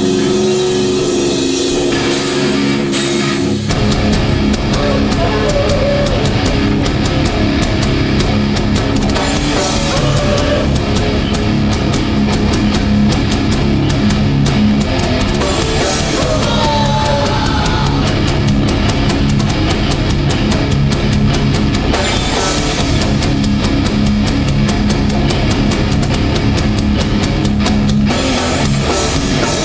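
A hardcore band playing live and loud, with distorted guitars and a drum kit. A few held notes ring for the first few seconds, then the full band with drums comes in about four seconds in.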